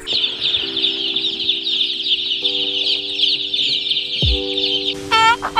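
A crowd of newly hatched chicks peeping, a dense, continuous chorus of high chirps that stops about five seconds in. Background music with steady held notes and a low thump runs underneath, and a different repeated call starts near the end.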